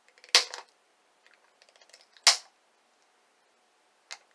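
A pen tip punching holes through tape stretched over the end of a spirometer: two sharp pops about two seconds apart, with faint ticks between.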